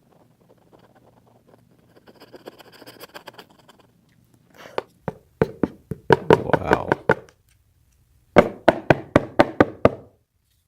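Faint scraping, then two runs of sharp knocks on a hard surface, several a second, during cleaning of old glue out of an iPad housing.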